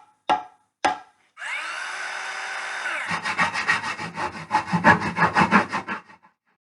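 A few short knocks, then a steady rasping noise. About three seconds in, it turns into quick, even scraping strokes, roughly six a second, like a tool working wood, which stop about six seconds in.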